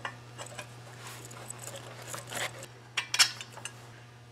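Light metallic clinks and knocks from a steel sulky frame arm being handled and shifted into place, the loudest a couple of sharp clicks about three seconds in, over a steady low hum.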